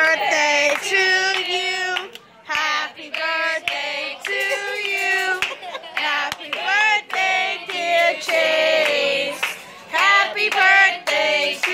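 A group of people singing a birthday song, with hand claps.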